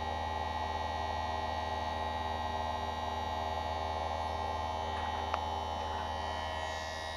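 Electric saw-chain sharpening machine's grinder motor running steadily at idle, with no chain being ground: a steady hum made of many fixed tones. A single short click comes about five seconds in, and the sound gets slightly quieter near the end.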